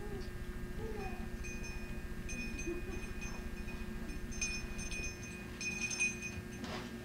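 Bell-like chiming: a high ringing tone that sounds in several short stretches, starting about a second in and loudest in the second half.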